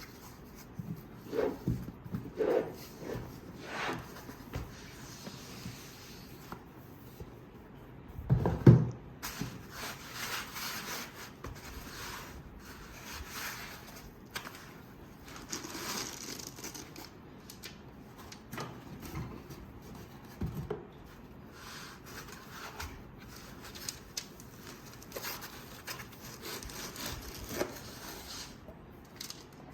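Hands handling a boxed product and its packaging: irregular rubbing, scraping and light knocks, with one louder thump about eight and a half seconds in.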